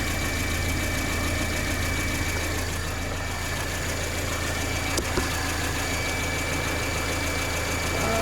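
Peugeot 407's EW10J4 2.0-litre four-cylinder petrol engine idling steadily, with a thin steady high-pitched tone over it and two short knocks about five seconds in.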